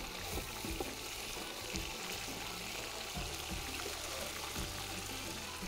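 Chicken pieces and onions frying in a large aluminium pot, a steady sizzle with scattered knocks and scrapes of a wooden spoon turning them. The chicken is being browned in the onions to take on their flavour.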